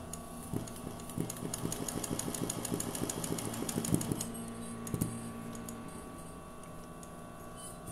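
Sewing machine doing free-motion embroidery: the needle stitches in a rapid, even run for about four seconds, then the machine runs on more quietly with a single knock about five seconds in.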